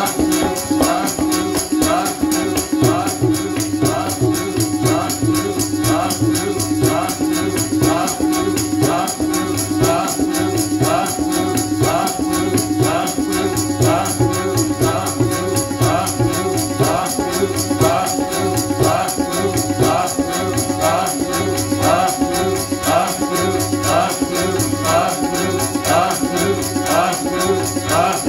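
Sikh kirtan: group hymn singing over a sustained drone, kept in time by the steady jingling of handheld kartal (wooden clappers with metal jingles) and small hand cymbals, with a regular low beat underneath.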